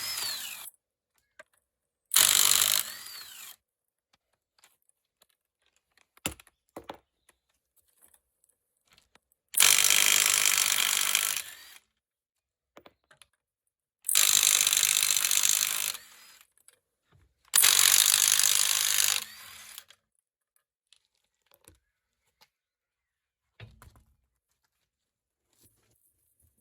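Handheld power tool run in five short bursts of one to two seconds each, with a few faint clicks and knocks between them.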